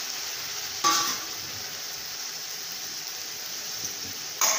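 Freshly added chopped tomatoes and onions sizzling in hot oil in a metal pot, a steady hiss, with two short metallic clinks of the slotted spoon against the pot, about a second in and near the end.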